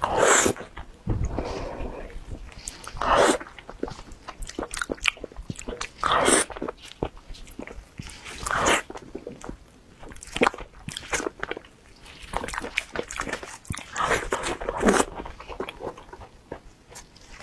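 Close-miked eating of soft durian flesh: wet mouth and chewing clicks, with a louder, longer mouth noise every two to three seconds.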